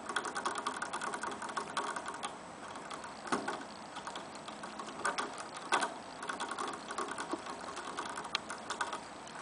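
Young rabbit drinking from a hanging bottle's metal sipper tube: runs of rapid clicking as it licks the spout, with short pauses and a few louder clicks about three and five seconds in.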